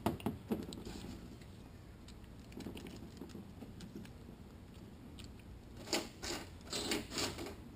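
Gloved hands handling an automatic-transmission part on a steel bench while a small brush dabs assembly lube onto it: soft rustling and faint scraping, then a quick cluster of light clicks and rustles about six seconds in.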